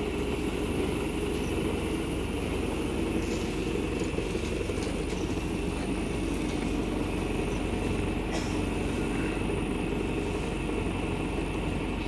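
Sewer suction-cum-jetting machine running with a steady, even low mechanical drone.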